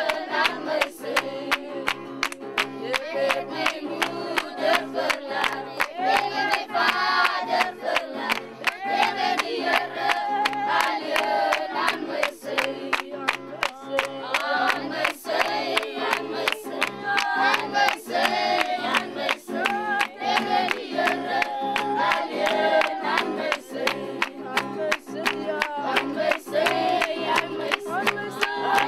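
A group of voices singing together to a strummed acoustic guitar, with a steady rhythm.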